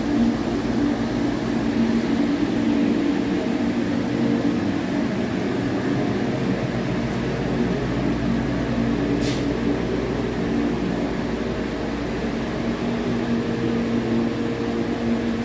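Paccar MX13 inline-six diesel engine running steadily on a test stand, an even, unchanging note that shows it running well. A short hiss about nine seconds in.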